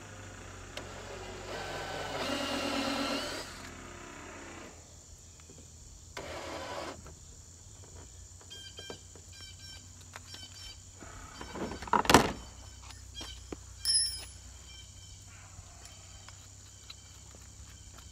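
Cordless drill with a 5/16-inch bit running under load through the kayak's plastic hull for about three seconds, its whine rising in pitch near the end, then a second short burst a few seconds later. About twelve seconds in comes a loud knock, followed two seconds later by a sharp clink.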